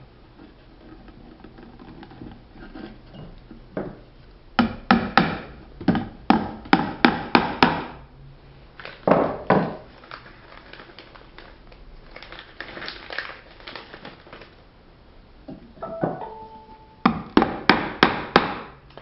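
A hammer striking nails into the wooden boards of a bluebird nest box, tapping the nails in to start them. The strikes come in several quick runs with pauses between, ending in a fast run near the end.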